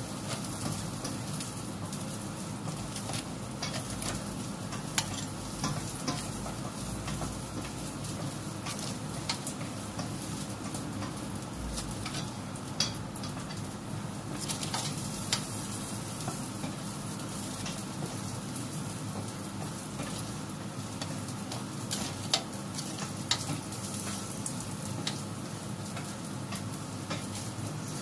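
Food sizzling: a steady crackling hiss with a handful of sharp clicks scattered through it.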